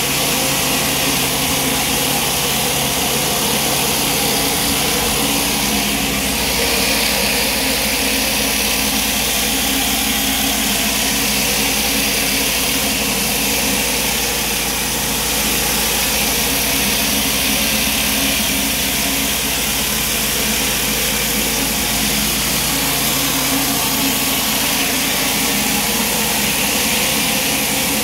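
Pressure washer running steadily, its engine under an even hiss of high-pressure water from a flat surface cleaner spraying block paving.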